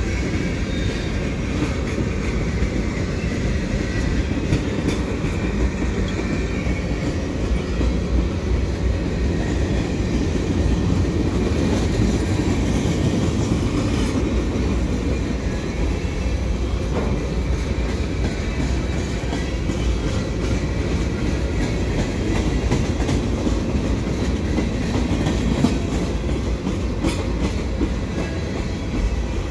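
Mixed freight train's cars rolling steadily past on the near track: a continuous rumble of steel wheels on rail, with quick repeated clicks of the wheels over the rail joints.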